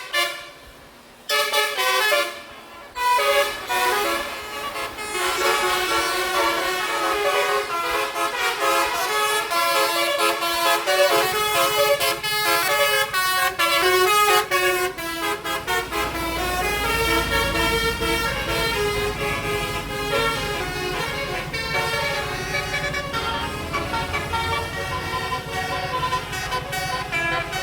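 Basuri telolet bus horn playing a tune of stepped notes, with two brief breaks in the first few seconds. About halfway through, the low rumble of the bus's engine comes in beneath the horn and grows stronger.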